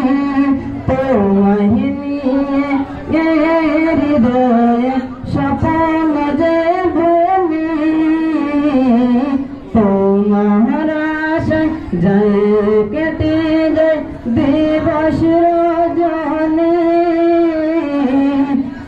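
A man singing solo into a microphone, amplified. He holds long notes that slide and bend between pitches, with only short breaks for breath.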